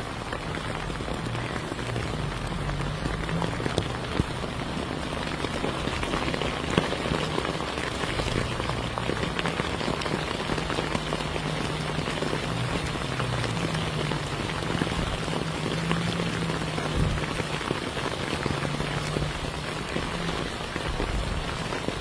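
Sleet, rain mixed with wet snow, falling steadily on rooftops and a wet concrete terrace: an even hiss made of countless small drop impacts, with no let-up.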